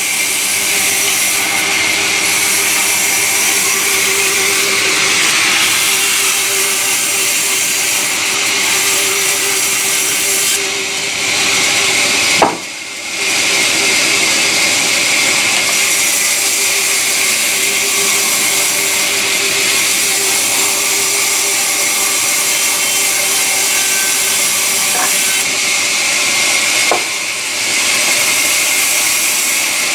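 Sawmill saw running and cutting timber: a loud, steady high-pitched noise over a faint hum, which drops out briefly about twelve seconds in.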